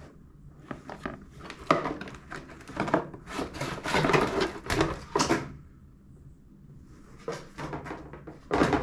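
Headphone packaging being handled and rummaged through: a run of scraping and rustling noises for the first five seconds or so, a quieter gap, then more handling near the end.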